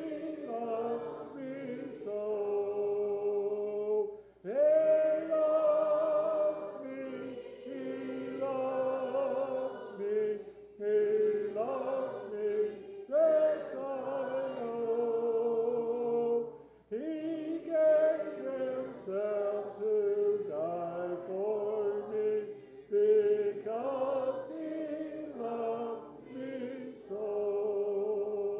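Church congregation singing a hymn a cappella, several voices together in phrases of held notes with short breaths between them.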